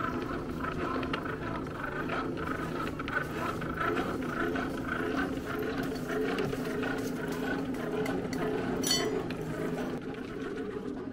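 Hand-cranked forge blower whirring steadily, its gears running as it blows air into a charcoal forge fire to bring the coals to a strong heat.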